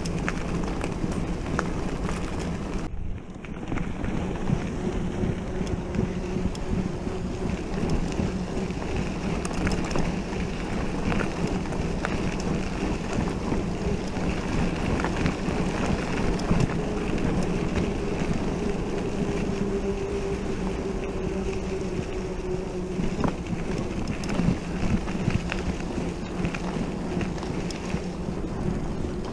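Wind buffeting the camera microphone over the steady rolling hum of mountain-bike tyres on a flat, hard gravel trail, while the bike is ridden along without a break.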